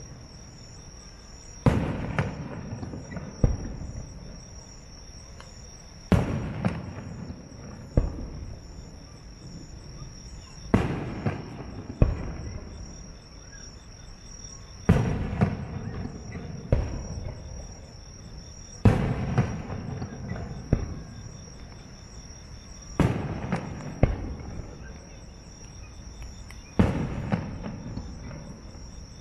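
Aerial firework shells bursting, about a dozen sharp bangs a few seconds apart, each trailing off in a rolling echo. A steady high insect trill runs underneath.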